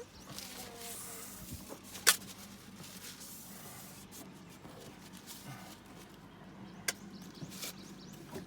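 Boat's inboard engine idling with a faint steady hum, broken by a sharp click about two seconds in and a smaller click near the end.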